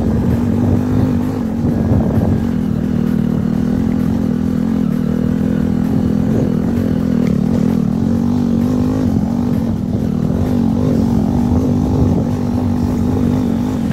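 Motorcycle engine running at a steady, moderate speed on a dirt track. Its pitch stays nearly even, with small wobbles as the throttle shifts.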